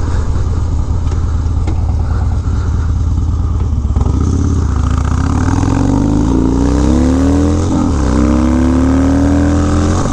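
Harley-Davidson Dyna's 96-cubic-inch V-twin through a Bassani Road Rage 2-into-1 exhaust, running steadily and then accelerating hard from about four seconds in. The engine note climbs, dips briefly at a gear change about three-quarters of the way through, and climbs again as it revs out.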